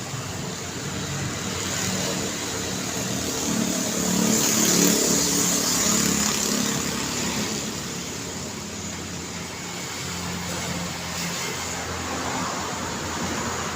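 Street traffic: cars passing on the road, with one vehicle passing close and loudest about five seconds in.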